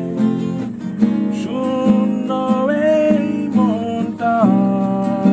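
Background music with strummed acoustic guitar and a melody line over it.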